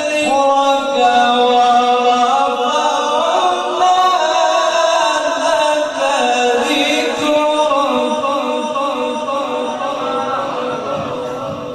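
Solo male Quran recitation (tilawat) in long, drawn-out melodic phrases, one voice through a microphone. The phrase tapers off near the end.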